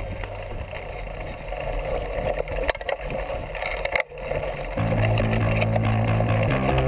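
Mountain biking heard on a GoPro microphone: tyres on a dirt trail with rattles, knocks and wind noise. About five seconds in, background music with sustained, stepwise-changing guitar notes comes up over the riding noise.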